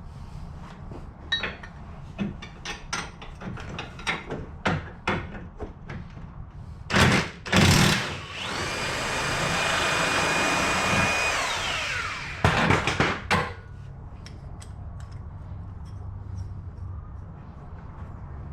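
Impact wrench working on the 14 mm bolts of a UTV's lower control arm. Scattered light clicks of socket and hardware, then two short bursts about seven seconds in. The tool then runs steadily with a whine for about three seconds before winding down, followed by a few more short bursts.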